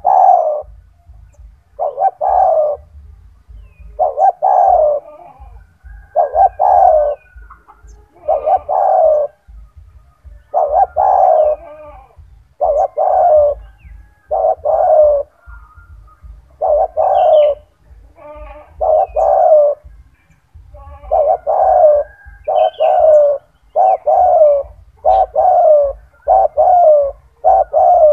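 Spotted dove (tekukur) cooing loudly and over and over, each call a short phrase of two or three notes. The calls come about every two seconds, then closer together, about one a second, in the last third.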